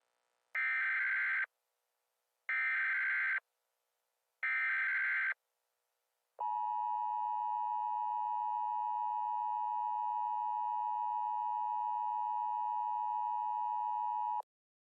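Emergency Alert System alert signal: three short, buzzy data bursts about a second apart, the SAME header, then the steady two-tone attention signal held for about eight seconds before it cuts off. It announces that an emergency broadcast is starting.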